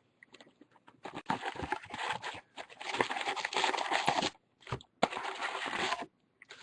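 Plastic wrapping crinkling and tearing in two stretches, with small clicks, as a sealed box of trading cards is unwrapped and opened.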